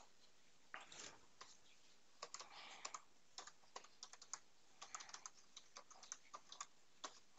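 Typing on a computer keyboard: a faint run of irregular key clicks that starts about a second in.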